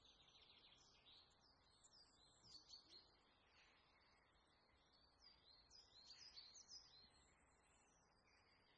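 Faint birds twittering: many quick, short chirps, some sliding down in pitch, over a quiet room hiss.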